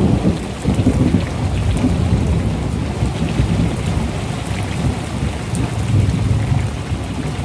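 Heavy rain falling, with a long, deep rolling rumble of thunder that swells at the start and keeps going underneath.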